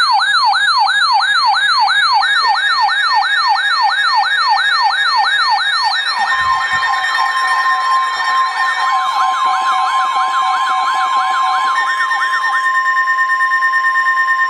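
Electronic yelp siren: a fast rising-and-falling wail repeating about three times a second. About six seconds in a steady tone joins it, and the wail goes on until near the end.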